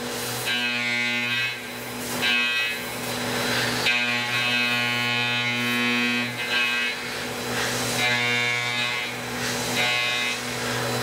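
Tormach CNC mill spindle at 7,500 RPM with a Shear Hog indexable cutter roughing aluminum: a steady hum with a cutting whine that comes and goes several times as the cutter moves in and out of the material.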